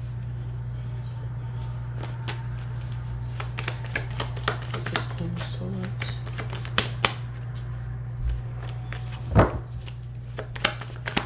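Tarot cards being shuffled by hand: a run of light papery clicks and flicks as the cards slide and slap together. One louder thump comes about nine seconds in, over a steady low hum.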